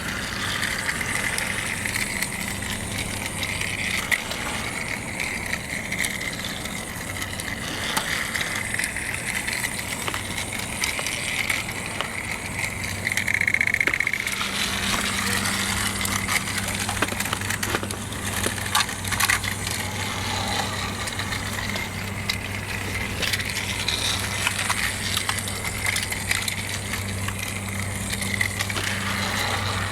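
Battery-powered TrackMaster toy trains running on plastic track: a steady whir of small electric motors and gears, with scattered clicks and rattles as the wheels run over the track. The low hum grows stronger about halfway through.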